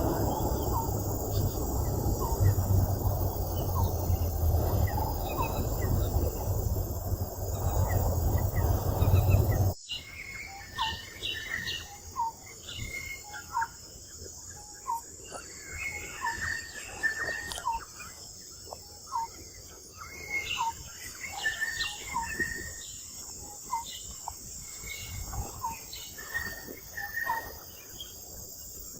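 Loud, low rumbling noise that cuts off abruptly about ten seconds in, followed by many short, high chirping calls over a steady high insect buzz.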